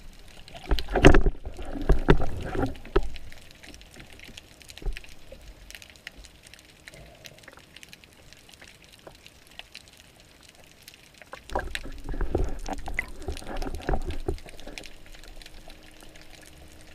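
Water churning and bubbling around an underwater camera on a speargun, in two bouts, about a second in and again from about eleven seconds, with quieter water noise between.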